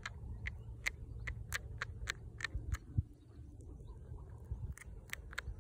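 A mole chewing roots: a run of sharp, crisp clicks, about three a second, with a short pause a little past the middle, over a steady low rumble.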